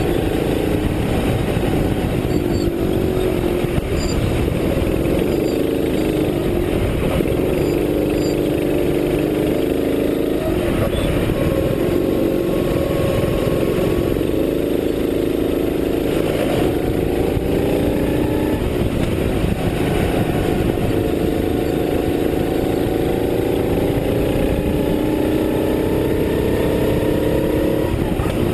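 Racing kart engine heard from a camera mounted on the kart, its pitch climbing for several seconds at a time as it revs up and then falling back, again and again through the lap.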